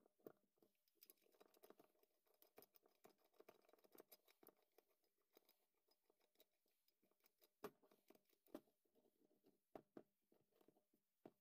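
Faint clicks, taps and scrapes of an old steel monkey wrench being handled: the sliding jaw is worked along the bar and the wrench is turned over on a cutting mat, with a few sharper knocks in the second half.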